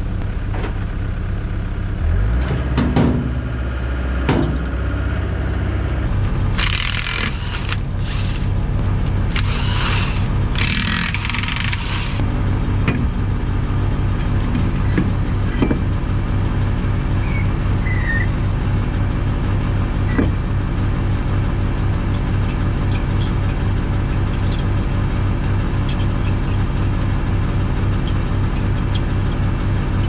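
Compact excavator's diesel engine running steadily, with a change in its note and some gliding sounds about two to four seconds in. Three short bursts of hiss come between about seven and twelve seconds in.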